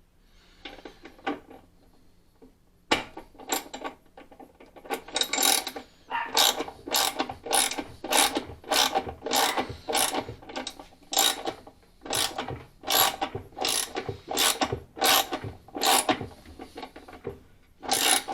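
Ratcheting socket wrench turning the pulsator (agitator) bolt clockwise on an LG direct-drive top-load washer, snugging the bolt down. Faint clicks at first, then about a second in a steady run of sharp ratchet clicks, about two strokes a second, that goes on until near the end.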